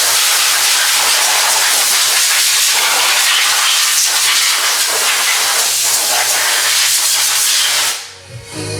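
Loud, steady hiss of escaping steam that starts abruptly and cuts off suddenly about eight seconds in, with faint background music beneath.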